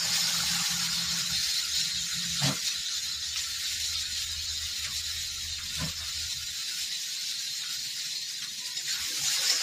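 Cubed pumpkin, potato and onion sizzling in hot oil in a kadai, just tipped in: a steady hiss, with two light knocks about two and a half and six seconds in.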